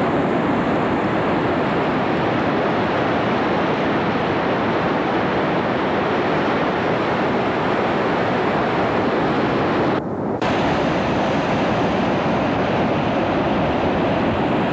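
Ocean surf breaking and washing on a rocky beach, a steady loud rush mixed with wind on the microphone. About ten seconds in the sound briefly goes dull for half a second.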